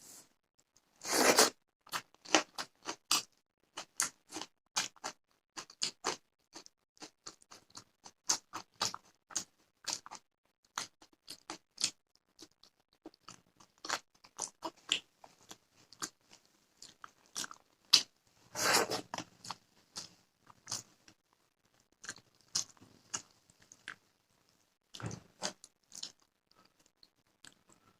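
Close-miked eating sounds: many quick wet chewing clicks and bites of rice and fish curry, with louder crunches about a second in and again near the middle, such as biting raw onion.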